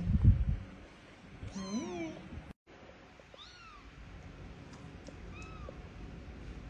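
Young kittens mewing: three short, high mews that rise and fall, a second or two apart. A couple of dull bumps come first, and they are the loudest sound.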